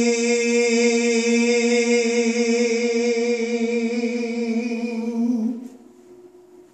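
A man singing unaccompanied, holding one long, steady note that ends about five and a half seconds in.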